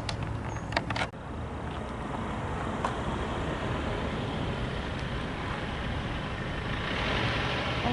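Diesel switching locomotive running, a steady rumble that grows louder near the end, with a few sharp clicks in the first second.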